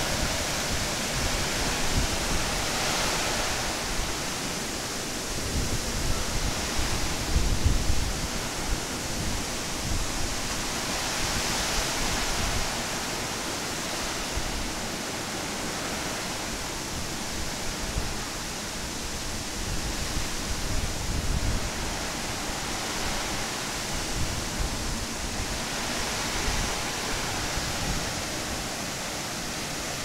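Typhoon wind rushing steadily through the trees, swelling and easing, with irregular gusts rumbling on the microphone.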